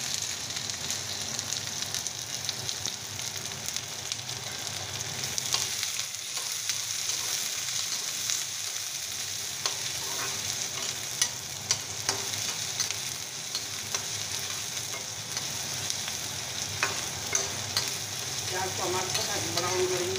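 Chopped onions frying in hot oil in a black kadhai, a steady sizzle, with occasional sharp clicks and scrapes of a metal spatula stirring them against the pan.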